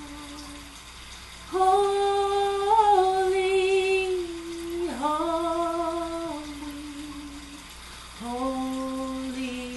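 A woman singing unaccompanied, holding long wordless notes of two to three seconds each with short breaks between, the last note stepping down in pitch as a gospel song closes.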